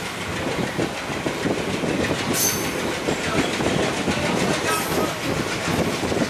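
Passenger coach of the Dadar–Sawantwadi Rajya Rani Express rolling out of the station at low speed, heard through an open coach window: a steady running rumble with wheels clacking over the rails. Two brief high-pitched squeals come about two seconds in and again near five seconds.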